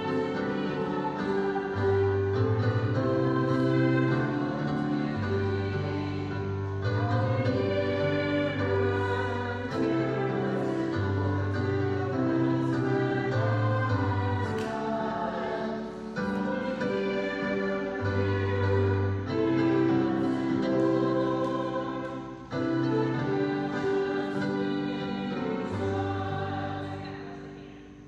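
Gospel-style choral singing over sustained chords and a steady bass line, fading down near the end.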